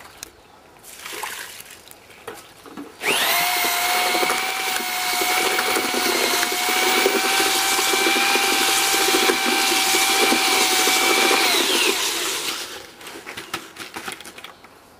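Electric drill turning a bucket mortar mixer auger through concrete mix in a five-gallon plastic bucket. The motor starts suddenly about three seconds in and runs with a steady whine over the noise of the churning mix, then winds down near the end.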